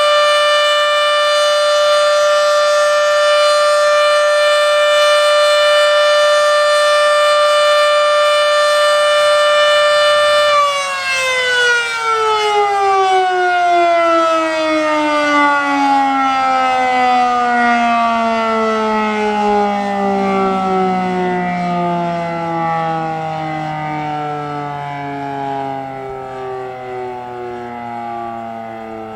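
Federal Signal Model 7B outdoor warning siren sounding its steady alert tone, loud though short of full pitch. About ten seconds in it shuts off and winds down, its pitch falling steadily and the sound fading slowly.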